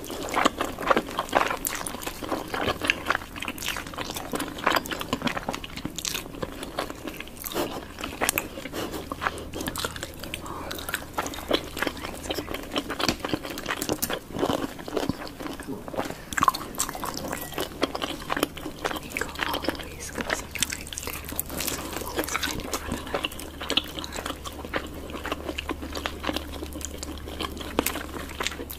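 Close-miked mukbang eating sounds: many irregular bites and crunchy chewing of chicken and cucumber, with wet mouth noises.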